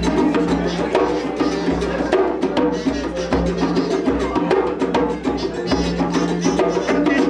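Small live band playing an instrumental groove: quick, busy percussion strokes over guitar and a steady low bass pulse.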